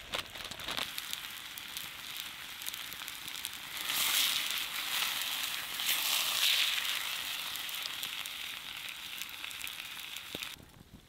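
Steak sizzling in a frying pan held over a log fire, with the fire crackling. The sizzle swells about four seconds in and drops away suddenly near the end.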